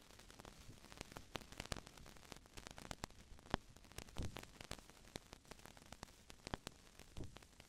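Faint crackling static: irregular sharp clicks and pops over a low hiss, with a couple of soft low thumps about four seconds in and near the end.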